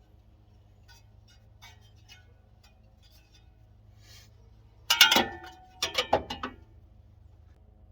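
A few faint light clicks, then about five seconds in a loud metallic clank with a short ring, followed by a quick run of smaller clanks: metal parts or tools being handled and set down.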